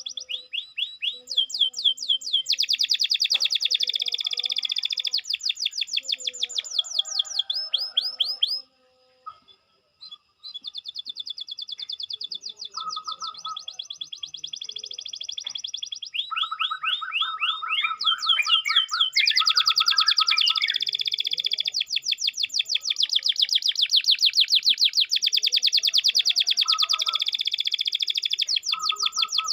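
Domestic canary singing long, rapid high-pitched trills, with a short pause about nine seconds in.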